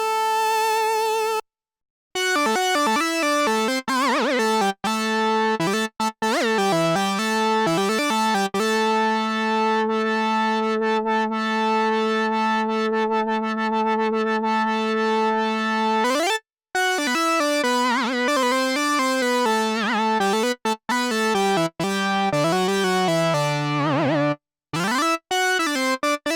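Novation Bass Station II analog synthesizer playing a bright, buzzy lead line: short notes broken by brief gaps, then a long held note through the middle, with pitch glides between notes, rising near two-thirds of the way in and falling near the end.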